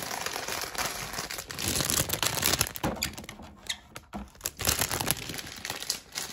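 Thin plastic LEGO parts bag crinkling as it is handled and torn open, with short clicks of loose bricks shifting inside.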